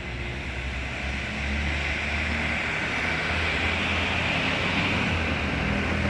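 Road traffic outside: a vehicle's low engine rumble that grows louder about a second and a half in and stays up.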